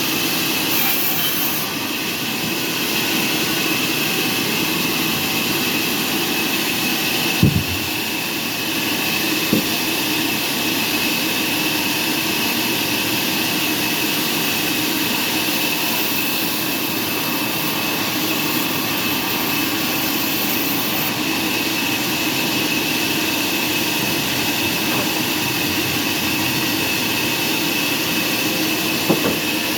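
Sawmill machinery running steadily, a constant machine noise with a steady high whine. A few sharp knocks come through: one about seven seconds in, another two seconds later, and one near the end.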